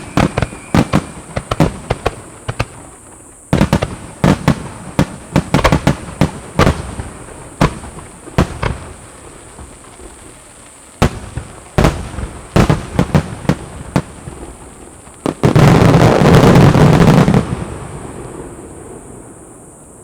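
Large aerial firework shells bursting in a finale: irregular clusters of sharp booms and bangs. About fifteen seconds in comes a dense, loud barrage of bursts lasting about two seconds, which dies away in a rumbling echo.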